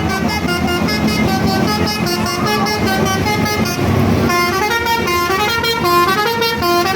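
Indonesian bus "telolet" musical air horn playing a quick tune of stepping notes, with a short break in the melody about four seconds in.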